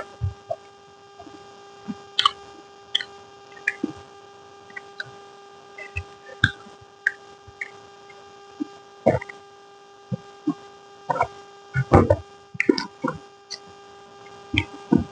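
Close-up eating sounds: irregular wet mouth smacks and clicks of chewing, over a steady electrical hum.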